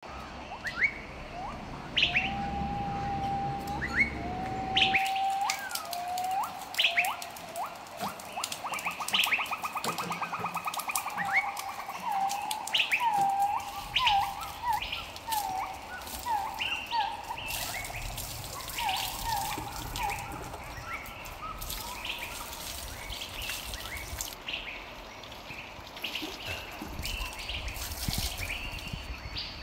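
Several birds chirping and calling: short sharp upward chirps mixed with whistled notes, and a run of quick repeated falling calls through the middle. A low rumble sits under the first five seconds and cuts off suddenly.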